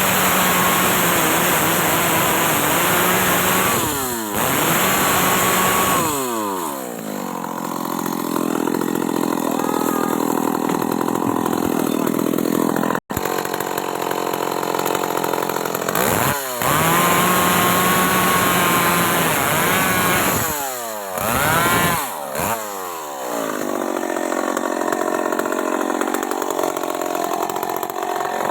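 Stihl MS 381 two-stroke chainsaw revving at high speed, then dropping in pitch as it loads up cutting into wood; this happens twice, with brief throttle releases between cuts.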